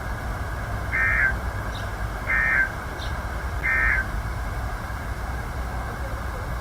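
Three short warbling digital data bursts about a second and a half apart: the SAME End-of-Message tones that close a NOAA Weather Radio alert, heard over a steady low hum and hiss of radio reception.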